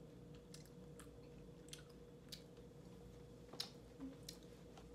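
Faint chewing of a KitKat wafer bar, a few soft crunchy clicks scattered over near silence, with a faint steady hum under it.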